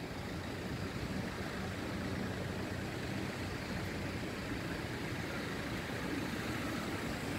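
Steady city traffic noise, a low even rumble with no distinct events.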